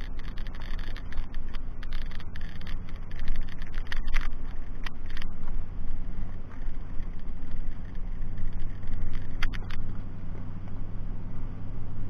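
A vehicle driving along a gravel road: steady engine hum and tyre noise, with a few sharp clicks or rattles about four, five and nine seconds in.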